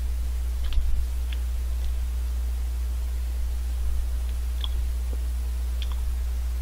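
A few faint, scattered wet mouth clicks and smacks of someone licking and biting an ice cream cone, over a steady low hum.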